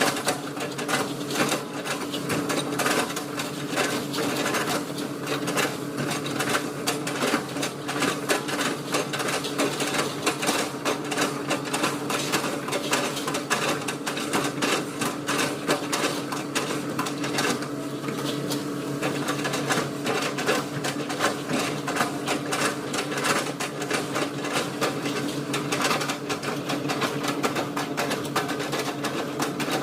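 Hitachi hydraulic excavator running steadily under load, its engine hum overlaid by a fast, continuous rattling clatter as it works at chipping felled oil palm trunks.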